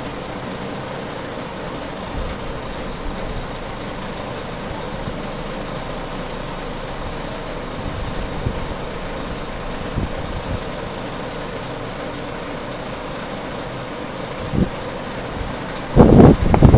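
Suction excavator truck's engine and hydraulic system running steadily while the spoil tank's lid is raised hydraulically by joystick. A brief loud noise about a second before the end.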